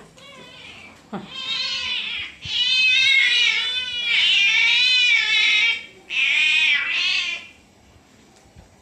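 Domestic cats meowing: four long, wavering meows in a row, the middle two loudest.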